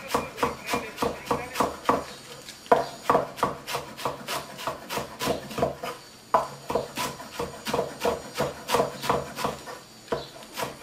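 Knife chopping lettuce on a wooden cutting board: quick, even strokes about three or four a second, with brief pauses about two and six seconds in.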